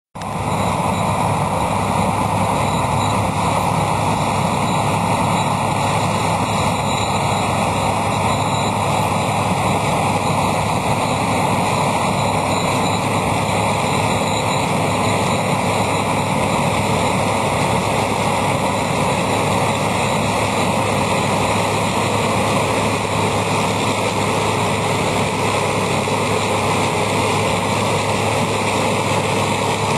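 New Holland CX840 combine harvester running steadily at working speed while threshing maize: an even engine hum under a constant rushing noise.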